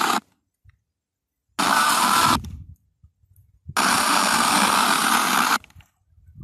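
FM radio static between stations as the receiver is tuned across the band: three bursts of hiss, a short blip at the start, a second of under a second about a second and a half in, and a longer one of about two seconds near the middle. Each burst cuts in and out sharply, with silent muted gaps between them.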